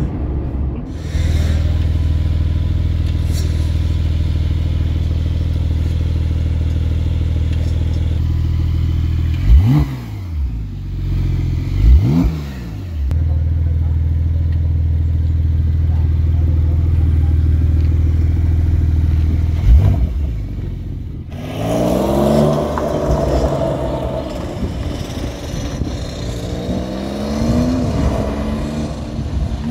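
Porsche 992 Targa 4 GTS's 3.0-litre twin-turbo flat-six with sport exhaust idling steadily, with three sharp throttle blips. After a sudden change, the engine is heard accelerating hard, its pitch climbing and dropping back at each upshift.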